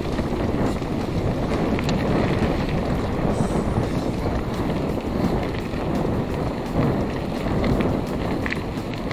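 Wind buffeting the camera's microphone during a mountain-bike ride, a steady rushing noise mixed with the rumble of knobby tyres rolling over a dirt track and a few small clicks and rattles.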